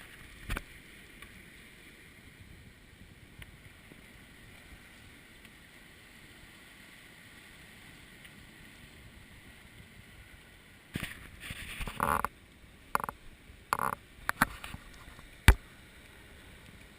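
Sounds aboard a sailboat at sea: a faint steady hiss of water and wind for most of the time. It is followed, about two-thirds of the way in, by a cluster of short knocks and splashy bursts ending in one sharp click.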